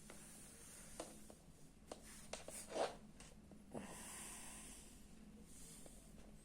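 Faint clicks and handling knocks, then a soft hiss lasting about a second and a half.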